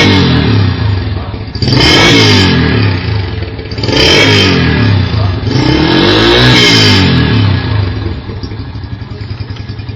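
Yamaha YBR's single-cylinder four-stroke engine through an aftermarket Roncar turbo-style exhaust, revved four times in quick blips, each rising and falling back, the last one held longer, then settling to a pulsing idle near the end.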